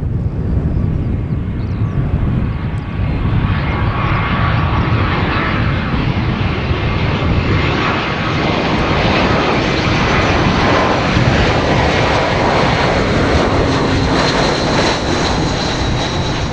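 Jet airliner passing close by, a loud steady jet noise with a thin whine from the engine fans. The hiss and whine grow a few seconds in and start to fall away near the end.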